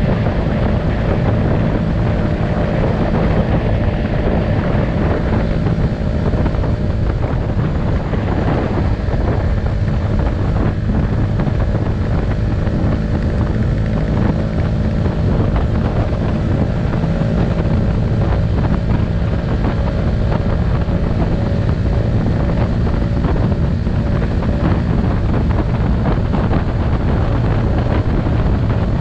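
Honda scooter's engine running steadily at cruising speed, with wind buffeting the microphone.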